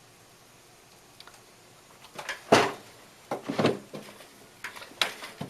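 A quiet stretch, then from about two seconds in a run of short knocks and clatters as tools are handled and set down on a jeweller's bench, the loudest about halfway through.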